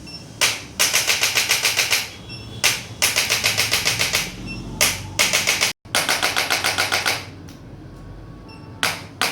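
Electric chiropractic adjusting instrument tapping rapidly along the spine, about eight or nine sharp clicks a second in bursts of about a second, each burst led by a single click; four bursts.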